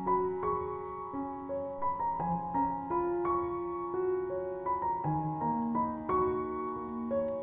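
Background piano music: a slow, gentle melody of single held notes.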